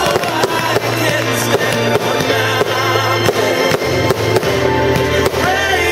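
Music with long held tones over a low bass line. Sharp bangs and crackles from aerial firework bursts sound through it.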